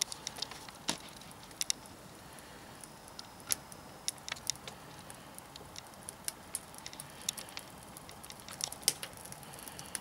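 Wood fire crackling inside a small homemade wood stove made from a 5-litre beer keg, with irregular sharp pops and snaps over a faint steady hiss.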